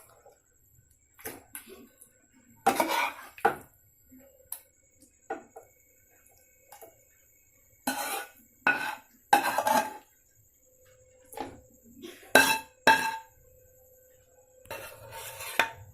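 A cooking utensil clinking and scraping against pans and dishes in scattered short bursts as cooked chicken is added onto a layer of biryani rice in a large pan.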